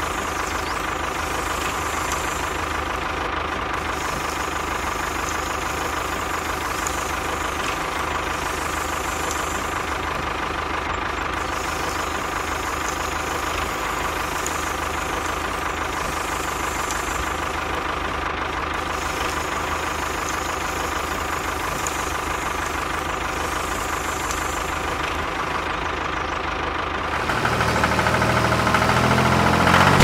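Steady engine-like running sound of a miniature tractor at work, even and unchanging. Music comes in louder near the end.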